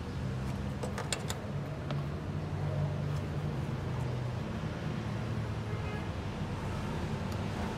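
Steady low rumble of running vehicle engines and traffic. About one to two seconds in come a few light clicks from the fuel pump's wiring connector and fuel line connector being unclipped.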